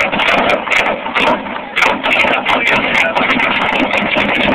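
Car engine running loudly with rapid, irregular pops and crackles from the exhaust as it shoots flames.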